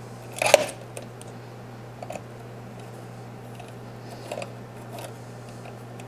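A screwdriver slipping off a screw and striking the motherboard: one short sharp clatter about half a second in, followed by a few faint taps of the tool, over a low steady hum.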